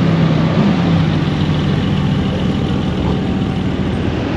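Sports car engine running at low speed with a low, steady note as a Porsche Cayman rolls slowly past at walking pace.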